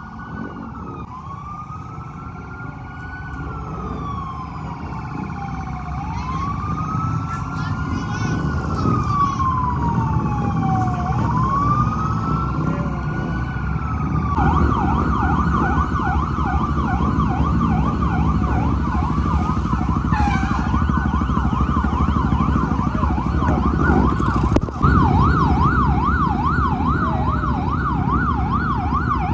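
Police car siren wailing in slow rising and falling sweeps that grow louder, then switching about halfway through to a fast yelp of two to three sweeps a second. A low rumble of idling motorcycle and truck engines runs underneath.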